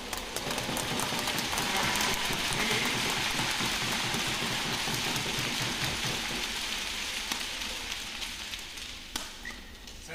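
Badminton arena crowd noise, a dense clapping-like din, over the sharp clicks of racket strikes on the shuttlecock during a rally. The crowd noise swells in the first second or two and dies away over the last few seconds.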